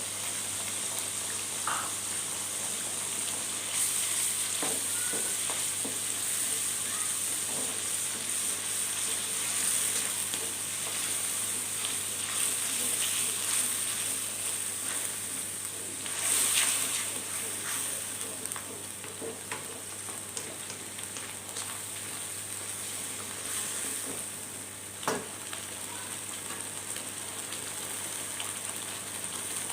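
Blended chili spice paste with bay leaves, lemongrass and lime leaves sizzling in hot oil in a pan as it is stirred, with a steady hiss and a few sharp knocks of the spatula against the pan.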